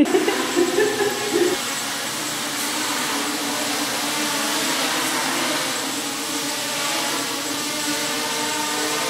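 Small quadrotor drones hovering: the electric motors and propellers make a steady buzzing whine with several pitches at once, surging unevenly for the first second or so before settling.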